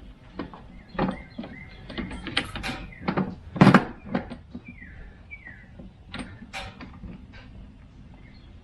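Scattered knocks and clicks of things being handled, the loudest a single thump about three and a half seconds in, with two short falling squeaks near the middle.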